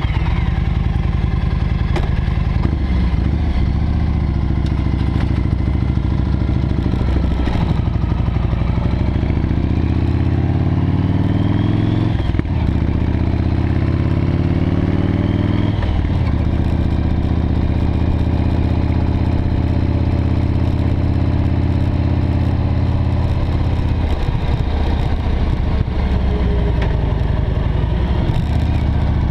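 V-twin cruiser motorcycle engine pulling away and accelerating up through the gears. Its pitch climbs and drops back at each shift, about ten and fourteen seconds in, then it runs fairly steady at road speed.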